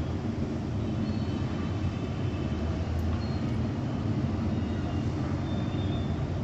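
Steady low rumble of distant city traffic, with a few faint short high tones over it now and then.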